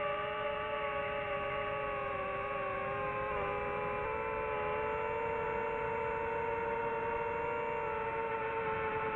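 DJI FPV quadcopter's motors and propellers whining steadily in flight, heard through the drone's own onboard camera. The pitch shifts slightly about three seconds in and again about four seconds in.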